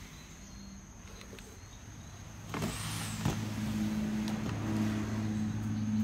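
A low, steady engine hum, like a motor vehicle running nearby, comes in about two and a half seconds in and grows louder, with a couple of faint knocks.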